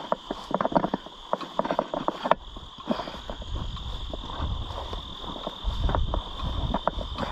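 Footsteps pushing through tall, dry goldenrod and weeds, a dense run of irregular crackles and swishes as stems brush and snap, over a steady high-pitched insect chorus.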